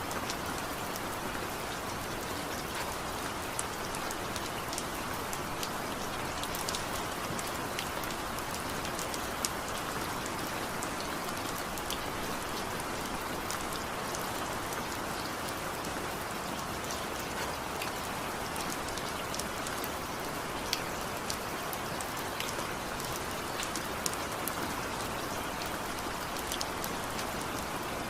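Steady rain falling, a constant hiss with many individual drops ticking sharply on a hard surface.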